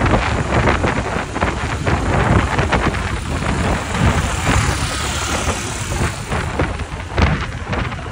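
Wind buffeting the microphone in uneven gusts over a low rumble.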